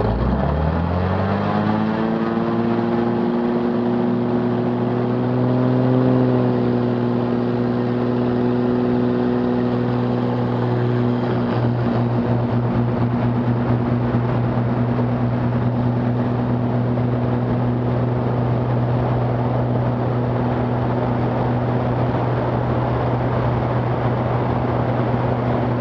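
Maule M7-235-C's 235 hp Lycoming six-cylinder engine and propeller coming up to full takeoff power: the pitch rises steeply over the first couple of seconds, then holds steady through the takeoff roll and climb-out. Rushing air noise grows as speed builds.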